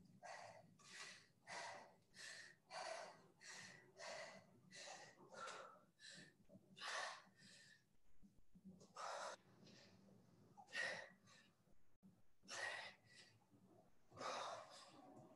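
Faint hard breathing of a person exerting themselves in a workout: quick breaths about two a second at first, then fewer and more spaced breaths after about six seconds.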